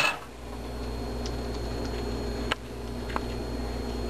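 Steady low background hum, with a light click about two and a half seconds in and a softer one about half a second later as the puff pastry and plate are handled.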